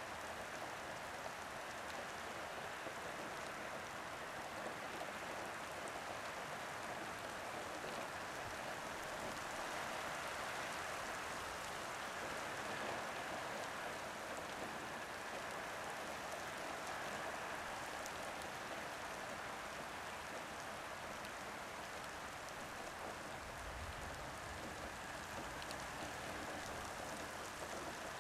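Soft rain falling on a street and roof, a steady, even patter with no let-up.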